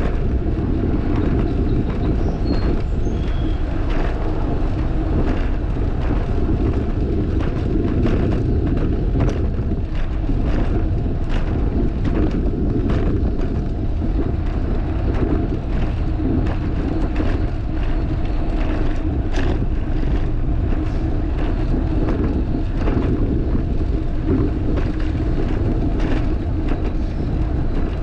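Wind rushing over an action camera's microphone while riding a fixed-gear bicycle along a paved path, with tyre rolling noise and frequent short clicks and knocks.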